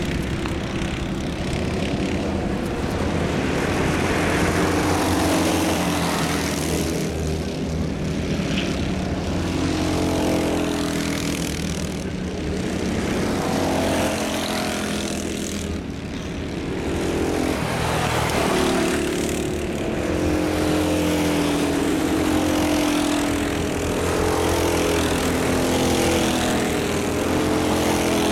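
A small pack of two-stroke racing kart engines buzzing round the circuit, the pitch rising and falling as they brake and accelerate through the corners. It swells louder several times as karts pass nearer.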